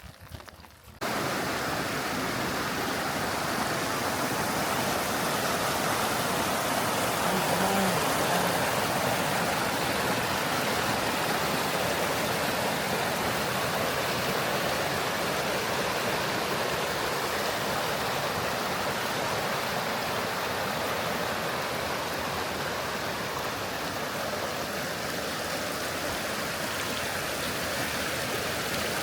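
Steady rushing water, cutting in abruptly about a second in.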